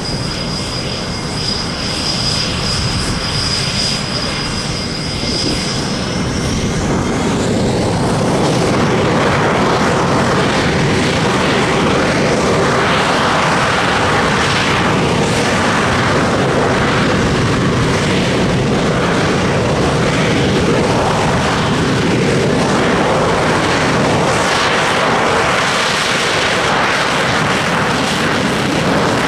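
Panavia Tornado's twin RB199 turbofan engines spooling up on the runway ahead of the take-off roll. A steady high whine glides upward about six seconds in, and the engine noise then swells to a loud, steady level that holds at high power.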